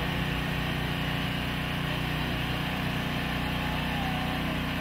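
A small engine running steadily, a constant unchanging drone.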